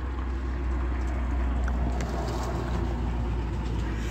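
A car passing on the road, a steady rumble of engine and tyres that grows gradually louder.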